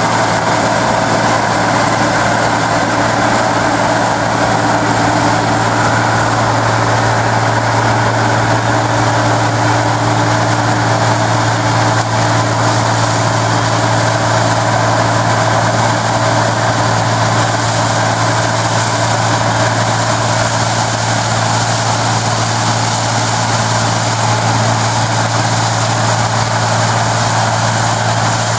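Claas Dominator 106 combine harvester running steadily while harvesting wheat: a constant low engine drone under an even wash of machinery noise.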